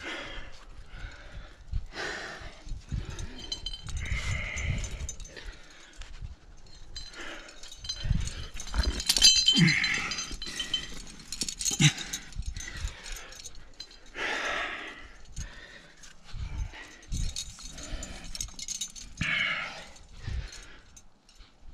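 A rock climber's heavy breathing and short grunts, a breath burst every few seconds, with metal clinking of carabiners and cams on the harness rack about halfway through and scattered low thumps.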